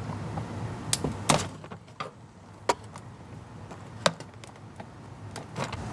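Plastic snap-in retaining clips of a car door trim panel popping loose as the panel is pried off, with four sharp snaps over a few seconds.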